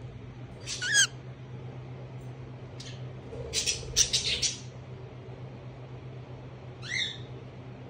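Cockatiel making short calls: a chirp about a second in, a brief call near three seconds, a harsh, noisy squawk around four seconds, and another chirp near the end, over a steady low hum.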